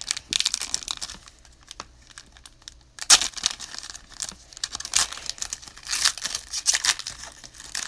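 Foil wrapper of a trading-card pack being torn open and crinkled, in several bursts of rustling, the loudest about three seconds in.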